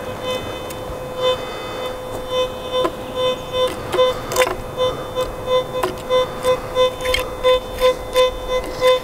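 Teknetics T2+ metal detector in all-metal mode: a steady electronic tone that swells about twice a second as the search coil is swept back and forth, a weak target response over a coin buried deep.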